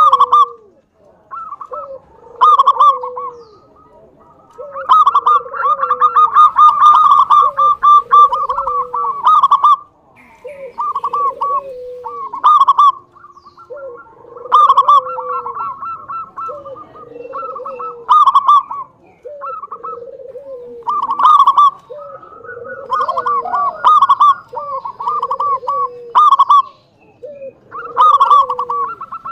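Zebra dove (local Indonesian perkutut) singing: repeated phrases of rapid staccato cooing notes over lower, drooping coos, a new phrase every one to two seconds.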